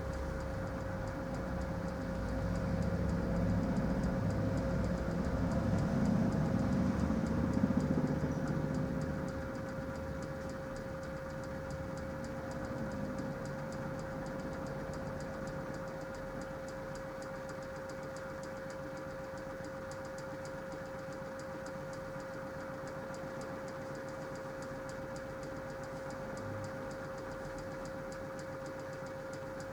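Minicolo mini washing machine running a wash cycle: the drum motor churns for about the first nine seconds, then eases off, leaving a steady hum with a light, rapid ticking.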